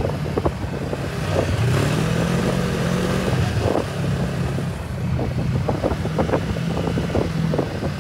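Yamaha snowmobile engine running under way, its pitch rising for a couple of seconds about one and a half seconds in, then settling. Wind buffets the microphone throughout.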